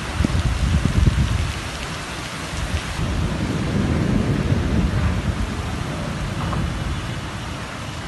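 Steady rain falling, with a low rumble of thunder that is loudest about a second in.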